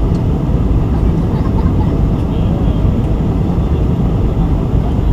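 Steady cabin noise aboard a Boeing 747-400 with Pratt & Whitney PW4056 engines: a deep, even rumble of engines and airflow with no distinct events.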